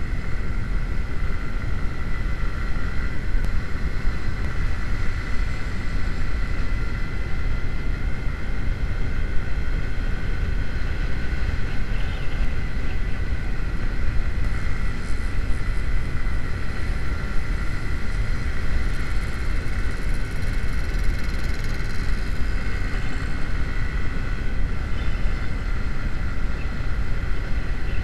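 Wind rushing over an action camera's microphone on a moving motorcycle, over the steady running of a Honda CB150R's single-cylinder engine at riding speed, with a steady high tone through it.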